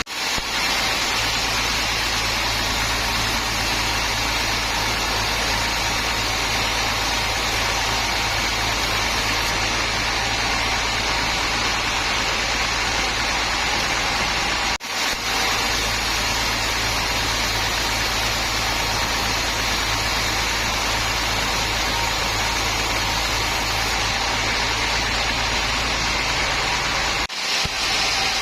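Sawmill machinery running steadily: a constant mechanical drone with a hiss over it, broken by brief dropouts about halfway through and near the end.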